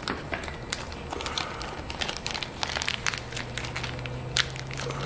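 Plastic parts bags and foam packing sheet crinkling and crackling as they are handled and opened, in irregular quick rustles. A faint steady low hum comes in about three seconds in.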